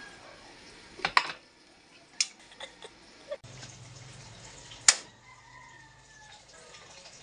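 Several light knocks and clatters as a cardboard canister is handled on a gas burner's grate, then a faint low steady hum with one sharp click about five seconds in as an electric cooktop's control is pressed.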